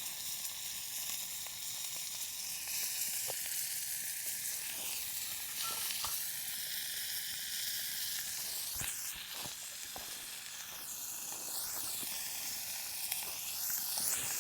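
Steak frying in a pan over a campfire: a steady sizzle, with a few sharp pops scattered through it.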